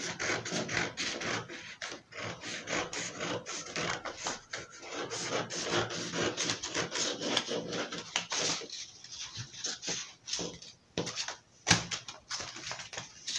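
Scissors cutting along a curved line through a folded paper pattern: a quick, irregular run of crisp snips and paper crunches, with a couple of short pauses near the end.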